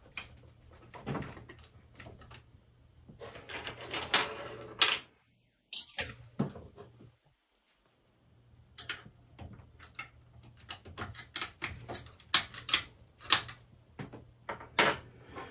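Scattered light clicks, clinks and knocks of small metal hardware being handled and fitted to the scooter's rear motor axle: washers, nuts and a hex key. The sounds stop dead twice near the middle.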